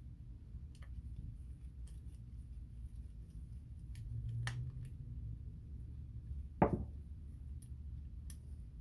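Faint clicks and taps of a screwdriver and metal reel parts being handled at a fishing reel's side plate, with one louder knock about two-thirds of the way through, over a low steady hum.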